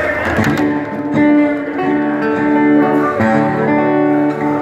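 Acoustic guitar playing the opening chords of a song, each chord left ringing and changing to the next about every second.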